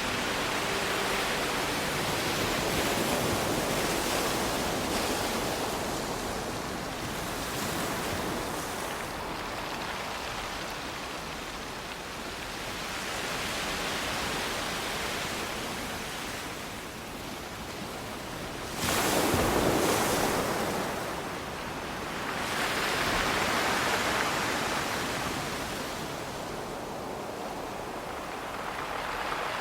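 Surf breaking on a pebble beach, rising and falling every few seconds. The loudest wave comes in suddenly about two-thirds of the way through.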